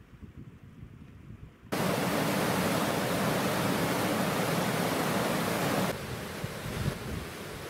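Waterfall rushing over rocks: a loud, steady rush of falling water that starts suddenly about two seconds in, then drops to a quieter rush of white water about six seconds in. Before it there is only a faint low rumble.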